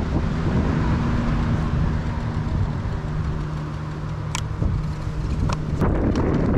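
Wind rumbling on the microphone of a moving electric scooter, with a steady low motor-vehicle hum from about a second in that stops near the end. A few sharp clicks come in the second half.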